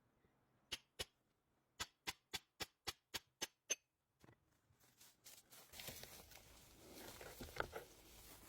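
About ten light, sharp clicks and knocks spread over three seconds, then a rustling handling noise that builds toward the end.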